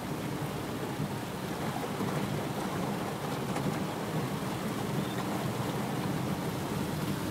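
Heavy rain beating on a car's roof and windshield, heard from inside the cabin, as a steady rushing with a low rumble underneath and occasional sharp drop ticks.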